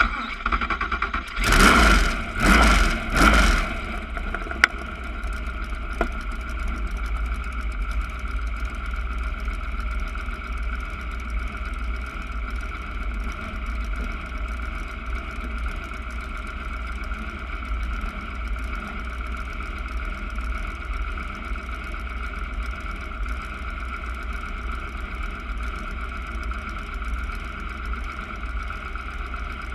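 Slingshot dragster's engine revved in three loud bursts about two to three seconds in, then idling steadily.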